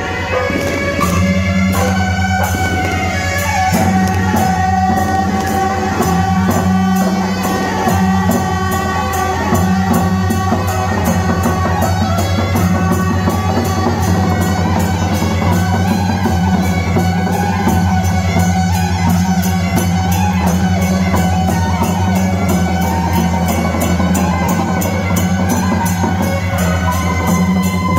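Loud music with drums keeping a fast, steady beat over sustained tones and a heavy bass line.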